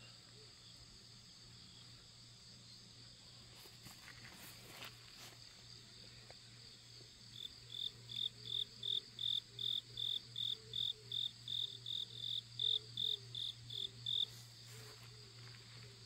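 A steady chorus of grass insects trilling. From about halfway through until shortly before the end, one insect close by chirps in an even, loud series of about three chirps a second.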